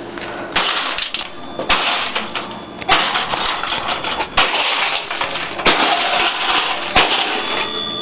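A hammer repeatedly smashing a toaster oven: six blows a little over a second apart, each a sharp bang followed by a clattering crash.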